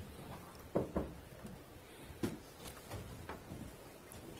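A few short knocks and clicks over quiet room tone: two close together about a second in, another a little after two seconds, then fainter ticks.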